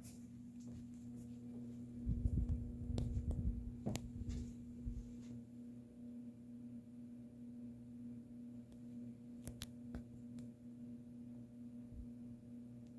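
Hampton Bay Littleton ceiling fan motor running with a steady electrical hum. A low rumble runs from about two to five seconds in, with a few light clicks.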